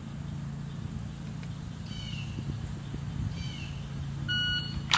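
Electronic shot timer giving its start beep near the end, one steady tone lasting about half a second, followed by a sharp click. Before it, a bird gives two short falling chirps over a steady low hum.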